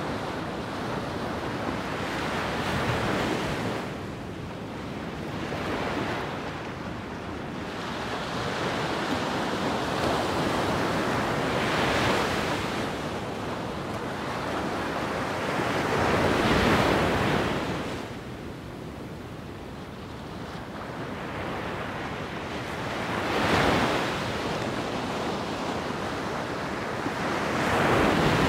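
Wind blowing over the microphone, a rushing noise that swells and fades in gusts every few seconds, with the strongest gusts about halfway through and near the end.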